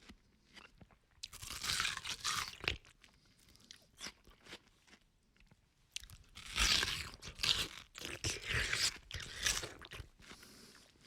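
A man biting into and chewing watermelon, juicy crunching in two bouts, one starting about a second in and a longer one about six seconds in.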